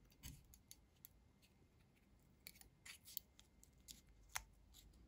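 Faint, scattered clicks and snips of the seal around a whisky bottle's cap being cut and worked loose.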